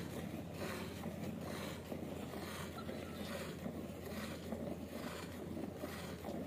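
Milk squirting from a cow's teats into a steel bucket of frothy milk as it is milked by hand, a hissing squirt about twice a second.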